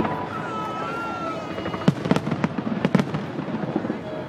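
Fireworks going off: a run of sharp bangs and crackles, with a thin high whistle from about half a second in that lasts about a second.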